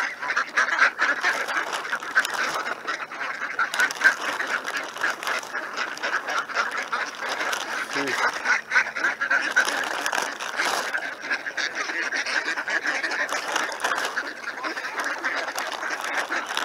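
A flock of ducks quacking without pause, many calls overlapping.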